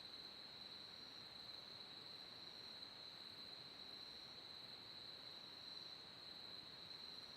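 Faint, steady, unbroken high trill of night insects such as crickets, over a low background hiss.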